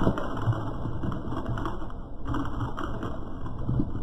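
Car rolling slowly over and crushing brittle objects: a low rumble with a run of crackling, crunching clicks.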